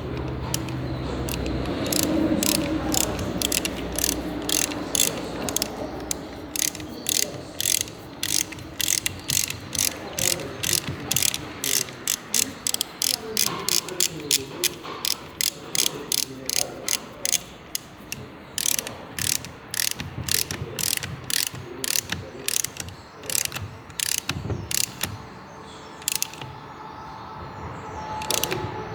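Ratchet wrench clicking in a long, even run of sharp clicks, about two to three a second, with a few short breaks, as fasteners are worked during the engine rebuild.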